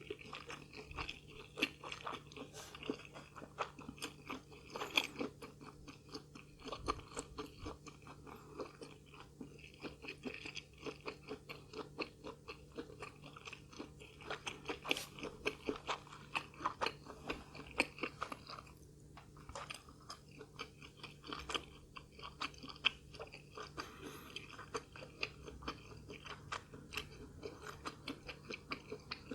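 Close-miked chewing with steady, rapid crunching, the sound of a person eating crisp deep-fried food. The chewing pauses briefly a little under two-thirds of the way through.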